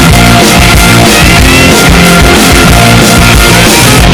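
Loud rock music with a steady drum beat and guitar, playing as an instrumental lead-in before the vocals.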